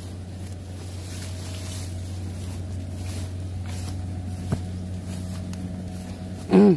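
Rubber-booted footsteps brushing through tall grass and weeds, over a steady low hum. There is a sharp click about halfway through, and a short, loud pitched sound just before the end.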